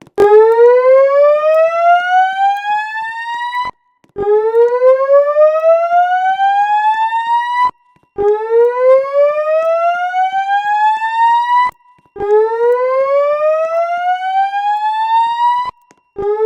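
Notifier voice evacuation system's alarm speakers sounding the slow whoop tone: a loud pitched tone rising steadily over about three and a half seconds, cutting off and starting again from the bottom every four seconds, four full whoops with a fifth beginning near the end. It is the evacuation signal played between the spoken emergency messages.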